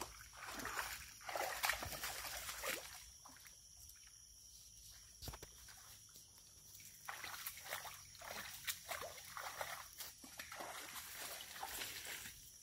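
Faint, irregular rustling and sloshing of someone walking through wet, muddy undergrowth, in two spells with a quieter pause in the middle.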